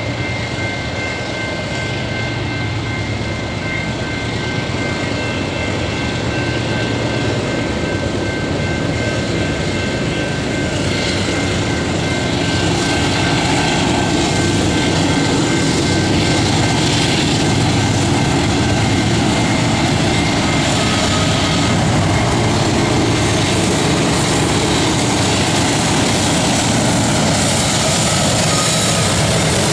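Freight train's lead GE diesel locomotives approaching. Their engine rumble grows louder over the first half and holds steady as the lead unit comes up close near the end.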